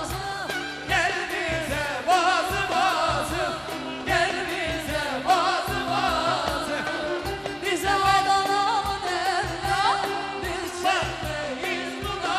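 Turkish pop-folk music: a voice singing a wavering, ornamented melody over a band with a steady beat.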